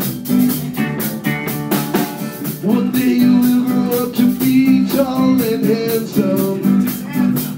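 Rockabilly band playing live: slapped upright bass, electric guitars and drum kit, with a fast, steady beat.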